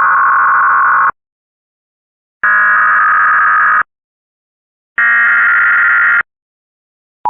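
Emergency Alert System SAME digital data bursts: three harsh buzzing bursts of data tones, each about a second and a half long with a second of silence between, sent three times in a row as EAS coded messages are.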